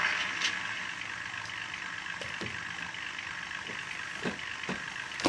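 A model locomotive's onboard sound decoder plays a steady idling-engine sound through its small speaker, with a few soft knocks in the second half. The sound carries on without a break while the turntable switches polarity.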